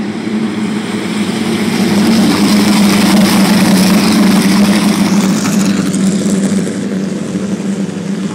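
Vintage midget race cars' engines running at racing speed. The sound swells as a car passes close, about two to six seconds in, then fades as the field moves away.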